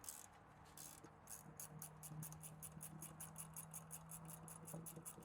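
Faint, rapid, even clicking of a ratchet wrench being worked, about six clicks a second, starting about a second in, over a steady low hum.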